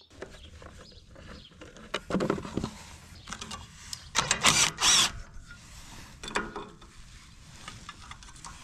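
Clicks and rattles of hand tools working on a small engine's carburetor and linkage, with two louder noisy bursts about two seconds and four to five seconds in.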